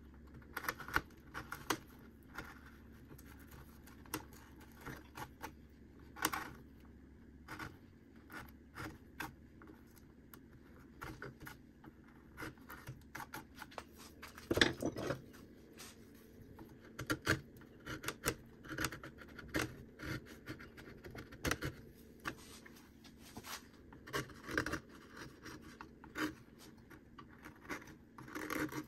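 Hand carving tools cutting and scraping into cottonwood bark: irregular short scratches and clicks of the blade, with the loudest scrape about halfway through.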